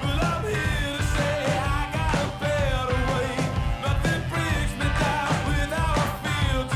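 Background music: a song with singing over a steady band beat.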